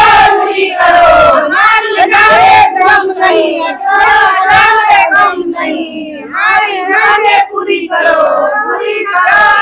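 A group of women chanting protest slogans together in short shouted phrases.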